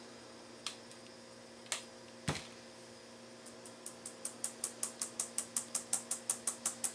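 Metal mesh kitchen strainer knocking against the rim of a stainless steel bowl as it is shaken to push blended gelatin through and hold back the lumps: a few separate sharp clicks, then from about halfway a quick, even run of light clicks, about five a second.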